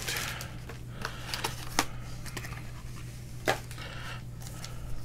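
Sports card packs, wrappers and cards being handled on a table: scattered light clicks and short rustles, over a steady low hum.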